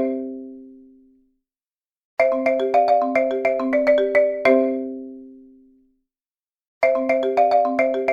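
Countdown-timer alarm in a marimba-style ringtone: a quick run of about eight bright mallet notes rings out and fades away, then the run starts again after a short silence. It repeats about every four and a half seconds, with the runs starting about two seconds in and again near the end.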